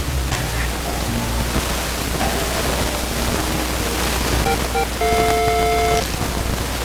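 Loud steady hiss like rain, over a low hum. About four and a half seconds in, a few short electronic beeps lead into a held video-game-style "level up" chime that lasts about a second.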